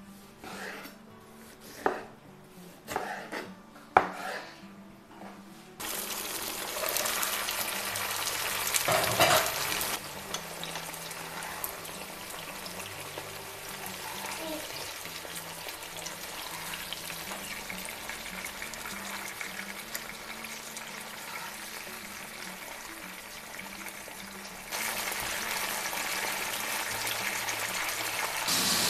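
A kitchen knife chopping tomatoes on a wooden cutting board, a few sharp strikes. Then green peppers frying in oil in a pan: a steady sizzle, stirred with tongs about nine seconds in and getting louder near the end.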